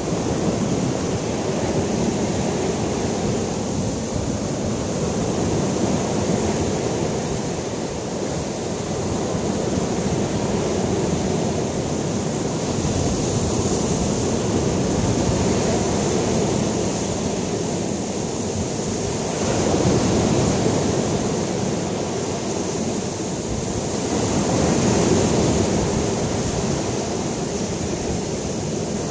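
Lake Michigan surf breaking on a sandy beach: a steady rush of waves that swells louder every several seconds as bigger breakers come in.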